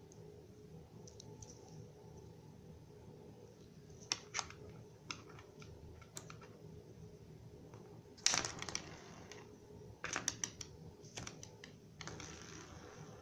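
Hands handling small hard plastic pieces, such as a Kinder Surprise toy and its capsule: scattered sharp clicks and taps, with a longer rustle about eight seconds in and again near the end.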